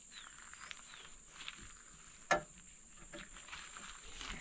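Steady high-pitched insect chorus, with a canvas shower curtain rustling as it is hung on its frame and one sharp click a little past two seconds in.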